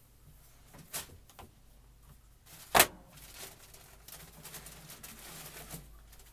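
A click about a second in and a sharp knock a little under three seconds in, then a few seconds of paper rustling as a sneaker is unwrapped from its tissue paper and lifted out of the box.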